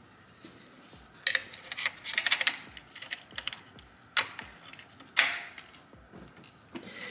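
Hands working on an oil catch can and its mounting bracket in an engine bay: a few sharp clicks and knocks of parts being handled, with a quick rattling run of clicks about two seconds in.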